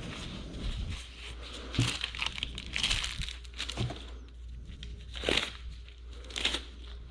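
Crinkling and rubbing handling sounds close to the microphone, with a few louder scrapes about three, five and six and a half seconds in, over a steady low rumble.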